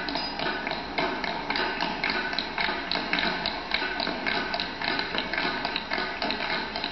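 Tap shoes of several tap dancers striking a wooden stage in quick, dense rhythms, many taps a second, over accompanying music.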